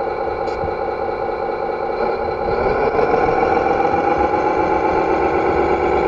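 Simulated truck diesel engine from the sound module of a 1:7-scale RC 1950 Kenworth, running steadily, then rising in pitch and getting louder about two and a half seconds in, as if throttling up.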